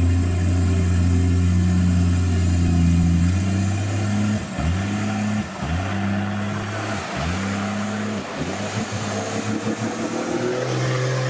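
A Suzuki-badged off-road 4x4's engine runs at a steady speed for about three seconds. Its driver then blips the throttle in a series of short revs that rise in pitch, with a rough rushing hiss under the later revs.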